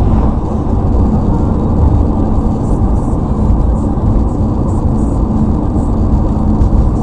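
Steady road and engine noise inside a moving car's cabin, loud and even, with a low hum running under it.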